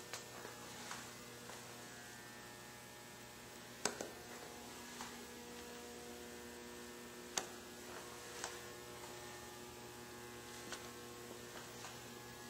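Steady electrical mains hum with a few sharp clicks over it; the loudest clicks come about four seconds in and about seven and a half seconds in.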